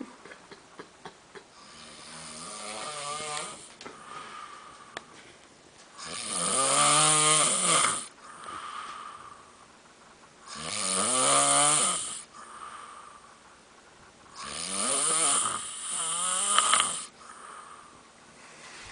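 A person snoring: a fainter snore about two seconds in, then three loud, drawn-out snores about every four seconds, each rising and falling in pitch.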